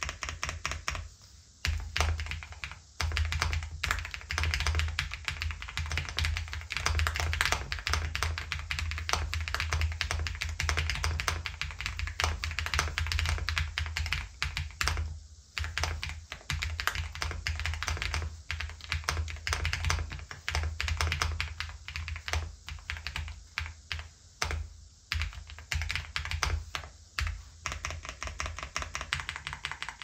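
Fast, continuous typing on the XVX K75 Pro, a fully aluminium 75% mechanical keyboard: rapid clicks of the keys, with a few short pauses.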